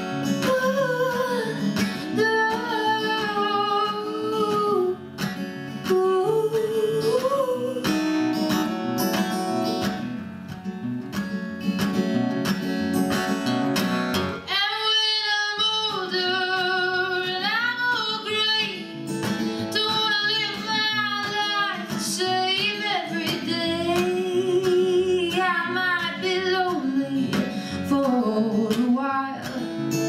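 Acoustic guitars playing with a woman singing a song.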